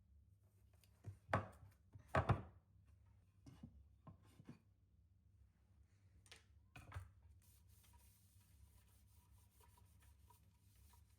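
A few scattered light knocks and taps from objects being handled, the loudest a quick double knock about two seconds in.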